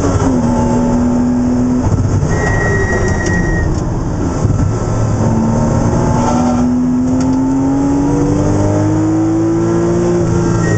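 Porsche Boxster race car's flat-six engine heard from inside the cockpit, running hard on track. Its revs drop sharply right at the start, then hold steady, then climb in one long slow rise from about five seconds in before falling again at the very end.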